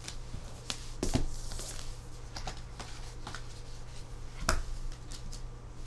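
Photocards being handled and sorted by hand: scattered light clicks and rustles as cards are picked up and set down, with two louder taps about a second in and again past four seconds.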